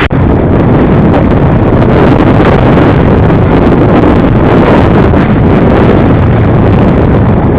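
ATV running along the trail, heard through a GoPro Hero with heavy wind buffeting its microphone: a loud, steady rumble.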